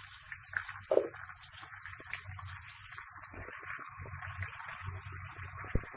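Metal spatula stirring and scraping chopped elephant apple in an iron karai, over a quiet steady sizzle of frying. A short knock about a second in and a sharp click near the end.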